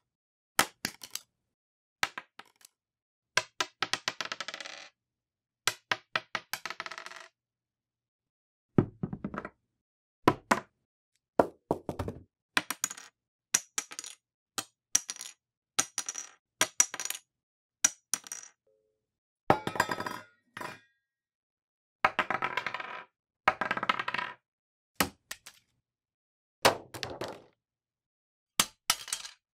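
Small hard objects dropped one after another onto a desk: a credit card, a 2x4 Lego brick and a tape dispenser. Each lands with a sharp hit, then makes quicker, smaller bounces and sometimes a short clattering slide or roll before it comes to rest.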